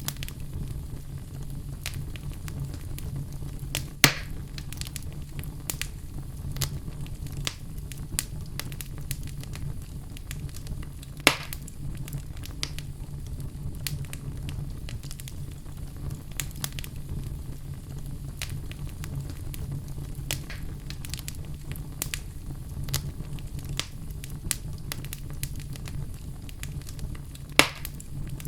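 Fire crackling steadily over a low rumble, with frequent small snaps and three louder pops, about 4, 11 and 27 seconds in.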